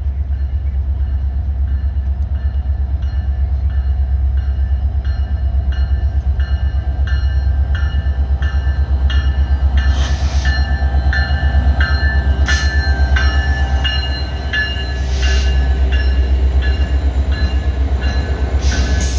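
Alaska Railroad diesel locomotives rumbling with a deep, steady throb as they draw a passenger train slowly into the station. A ringing of several tones repeats about twice a second, typical of the locomotive's bell, and a few short bursts of hiss come in the second half.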